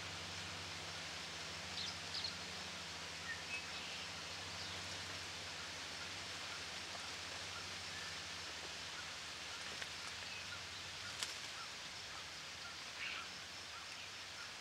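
Steady outdoor hiss with a faint low hum, through which a few brief, faint bird chirps sound now and then. A single sharp click comes about three-quarters of the way through.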